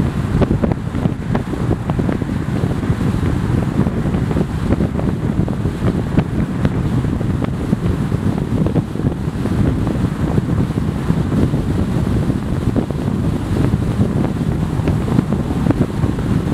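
Wind buffeting the microphone over the steady rumble of a car travelling at highway speed.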